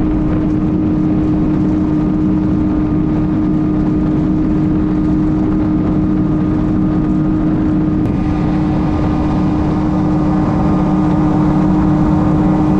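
Outboard motor of a micro skiff running at a steady pitch. Its drone holds constant, with a little more edge to it from about eight seconds in.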